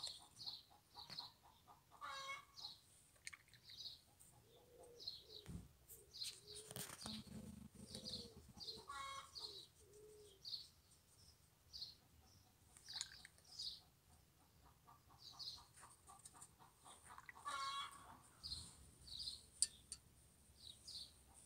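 Faint birdsong: short high chirps repeated every second or so, with a hen clucking now and then.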